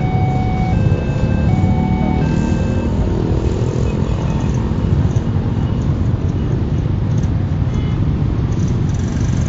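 Steady low rumble of a crowd of idling motorcycle engines and a passing train at a railway level crossing. The crossing's electronic warning signal alternates between two tones for about the first two and a half seconds, then stops.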